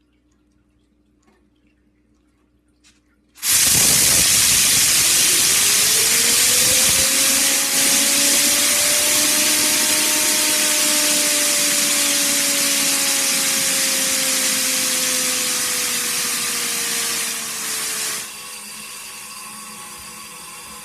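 Compressed air from a tank charged to 70 PSI blasting out of its output tube onto a fidget spinner. After a few seconds of quiet the hiss starts suddenly and loud, with a faint whine that rises and then slowly falls. Near the end it drops sharply to a quieter hiss.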